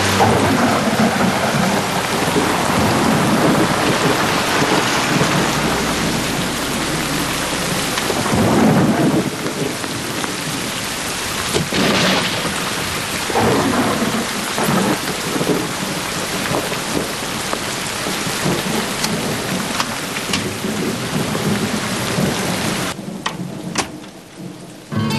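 Heavy rain pouring down in a thunderstorm, with rolls of thunder swelling up through the downpour. Near the end the rain sound drops away sharply.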